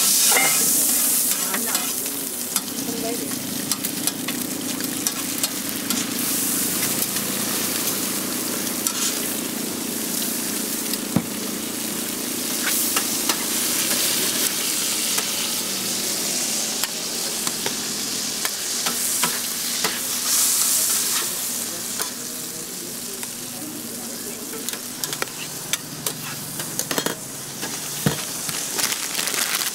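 Burger patties and eggs frying in oil on a flat-top griddle: a steady sizzle that swells loudly several times, with a metal spatula scraping and clicking against the griddle plate.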